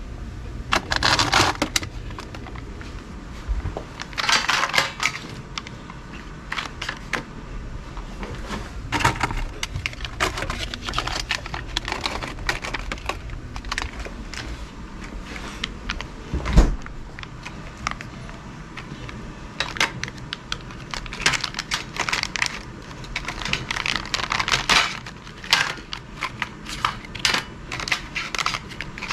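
Small packaged items being handled and sorted by hand: intermittent rustling and crinkling of packaging with light clicks and taps, and one sharp knock about two-thirds of the way through.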